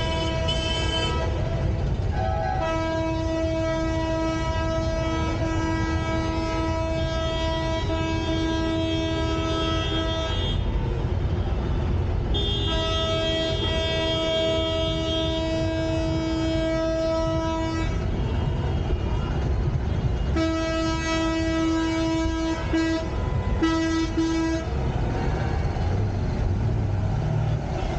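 A vehicle horn blowing in long, steady blasts: two long ones of several seconds each, then two shorter ones near the end. Underneath is a constant low rumble of street traffic.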